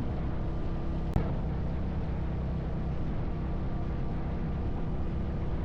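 Suzuki DR650's single-cylinder engine running at a steady cruise, with road and wind noise around it. A single short click about a second in.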